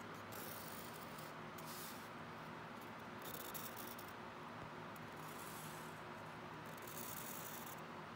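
Mechanical pencil lead scratching across sketchbook paper while drawing letter outlines, in several strokes of about a second each.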